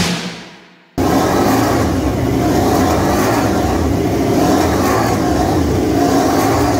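Music fading out, then about a second in, engines of Honda RC213V MotoGP bikes running steadily on their stands.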